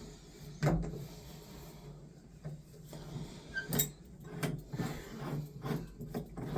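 Scattered light clicks and knocks of hand tools working a Mixet shower valve cartridge loose.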